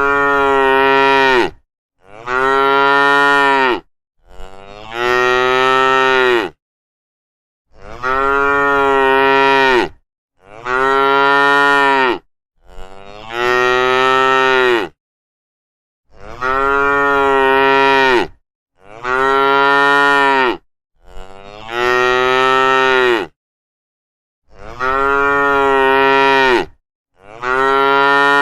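Cows mooing: about a dozen separate moos, each about two seconds long and falling slightly in pitch at the end, with dead silence between them.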